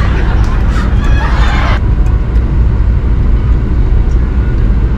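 Steady low rumble of a Mercedes-Benz S-Class 400d (W222) driving on the road, heard from inside the cabin. A voice is heard briefly in the first second or two.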